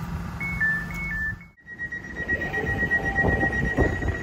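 Elizabeth line Class 345 train's door-closing warning: high beeps alternating between two pitches, about two cycles. After a sudden break, a single steady high tone continues over the low rumble of the train.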